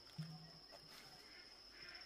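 Near silence: a faint steady high-pitched tone and a brief low thump about a quarter-second in.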